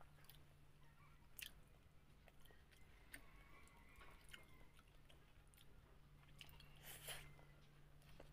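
Faint chewing of a mouthful of food, with a few short mouth clicks and smacks, over a low steady hum.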